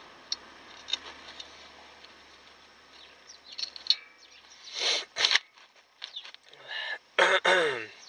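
Metal handling noise from VW Golf Mk3 rear drum brake shoes being fitted with a small return spring: light clicks, then louder rasping, clanking noises about five seconds in and again near the end, the last sliding down in pitch.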